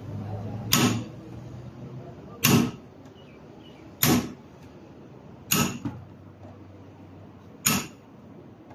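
Five sharp hammer blows on the metal of a car's CV joint, one every one and a half to two seconds.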